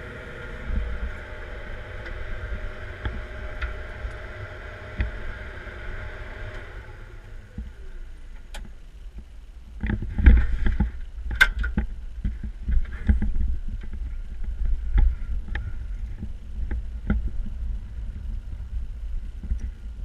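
Caterpillar 140M grader's diesel engine running steadily, heard from inside the cab, then shutting down about seven seconds in, its hum winding down. After that come irregular knocks, clicks and low thumps as the operator moves about and climbs out through the cab door.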